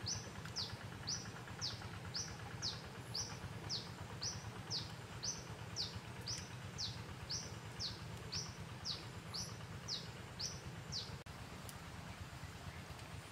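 A bird calling over and over in short high notes, about two a second, alternating rising and falling, that stop about eleven seconds in. A steady low hum runs underneath.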